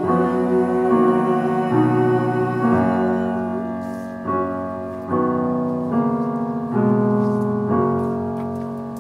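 Piano playing slow sustained chords, moving to a new chord about once a second and fading toward the end.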